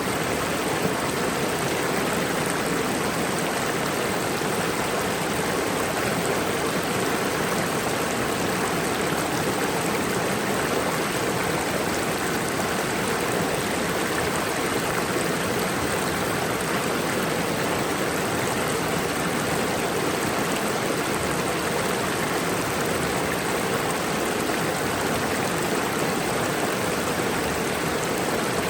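Mountain waterfall with rushing stream water, a steady, unchanging noise.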